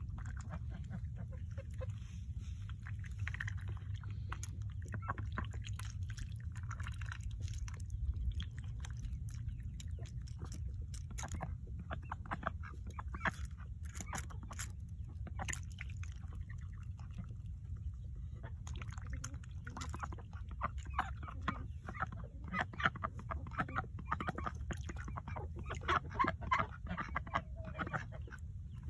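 Domestic ducks dabbling their bills in a pan of water, with soft quacks and short wet clicks and splashes that come thickest in the second half, over a steady low rumble.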